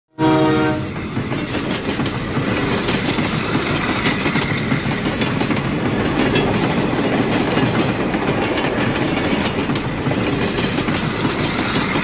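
A short train horn blast at the start, then a train running steadily, with a continuous rumble and rapid clicking clatter of wheels on track.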